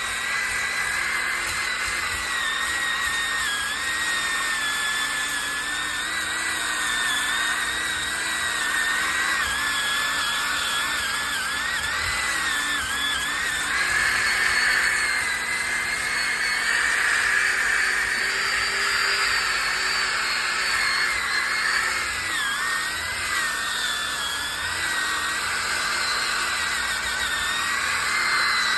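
Electric sander running against a log wall, a steady whine that wavers and dips in pitch throughout as the tool is pressed into the wood.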